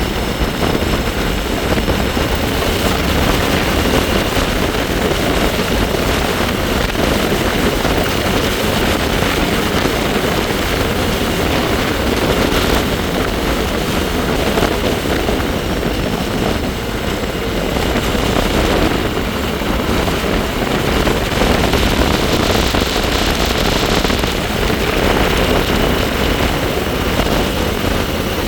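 Wind rushing and buffeting over the microphone of a moving bike, with a faint steady high-pitched whine from the bike underneath that drifts slightly in pitch, the sound the rider likens to the Jetsons car.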